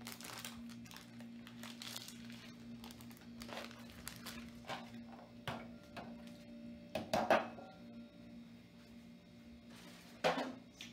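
Paper liner crinkling and rustling as it is peeled off a baked meatloaf and the foil loaf pan is handled, in irregular bursts with the loudest crinkles about seven seconds in and again near the end. A steady low hum runs underneath.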